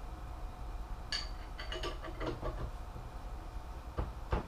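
Wrench clinking against the steel collet and handle of a balance-shaft bearing installer tool as the collet is tightened. A cluster of light metallic clinks about a second in, then two sharper knocks near the end.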